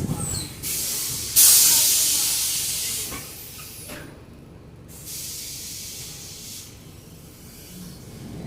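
Compressed air hissing from a Mercedes-Benz OF-1722M bus's pneumatic system. A sudden loud burst of air about a second and a half in fades away over the next second or two, and a softer hiss follows a few seconds later, over the bus's low rumble.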